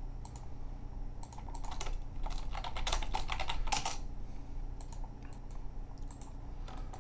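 Computer keyboard typing in short bursts of keystrokes while objects are renamed, the densest run about two to four seconds in.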